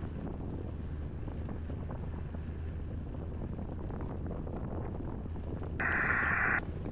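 Boat motor running steadily under way, with wind buffeting the microphone. A brief burst of hiss comes near the end.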